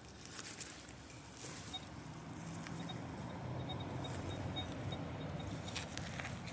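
Digging out a metal-detector target: scraping and knocking in the soil near the start and again near the end, with faint, short, high-pitched beeps repeating irregularly.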